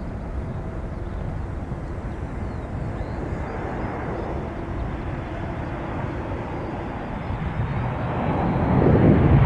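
Aircraft engines running as a steady rumble, swelling louder in the last second or two.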